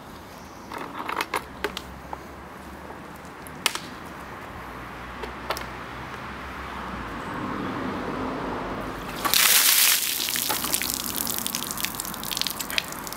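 A bucket of ice water tipped over a person: a loud gush of water about nine seconds in, lasting about a second, then water dripping and spattering off him onto the ground.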